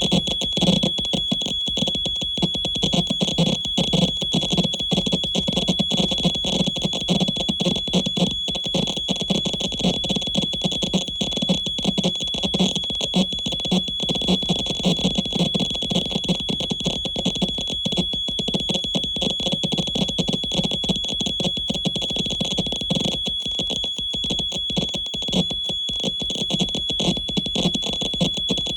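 Harsh noise music from electronics: a steady high tone held unbroken over dense crackling static and a low, wavering drone.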